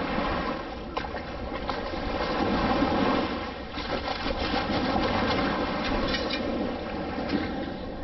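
Shallow surf washing around the legs, with a long-handled metal sand scoop being driven into the wet sand under the water, giving a few short scraping and rattling sounds.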